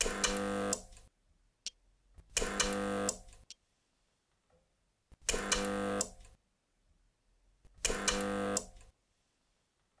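Homemade spot welder built from a microwave oven transformer buzzing in four pulses of about a second each, as its copper electrodes weld a metal strip onto the lithium cells of a battery pack.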